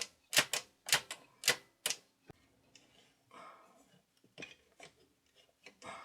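Small metal parts of a record changer mechanism clicking as they are handled and worked: a quick run of about seven sharp clicks in the first two seconds, then fainter clicks and short rubbing sounds.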